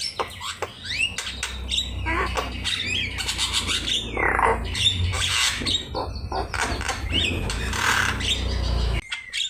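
Javan myna (jalak kebo) singing a busy, varied song of harsh squawks, quick rising and falling whistles and clicks, with a low rumble underneath; the sound drops away abruptly near the end.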